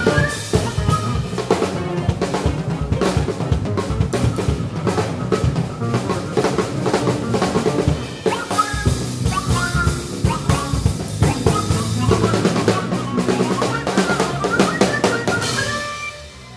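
A live band playing: a busy drum kit with snare and bass drum drives it, under electric bass and a trumpet line. The music drops away near the end as the piece finishes.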